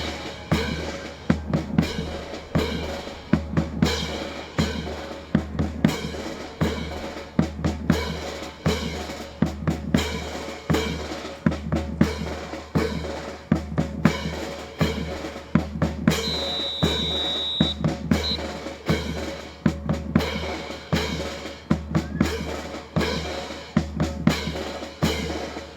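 A marching drum cadence setting the beat for a military drill team: steady sharp drum strokes with bass-drum hits, two to three a second. About sixteen seconds in, a high steady tone sounds for a second and a half.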